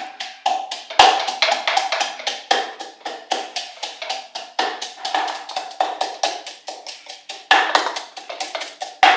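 Pestle pounding garlic and ginger in a mortar: quick, even knocks at about four or five strokes a second.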